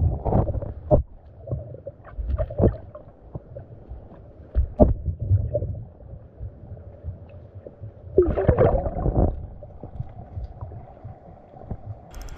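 Muffled underwater sound of river current, a low rumble with irregular knocks and thuds, and a louder rushing stretch about eight seconds in.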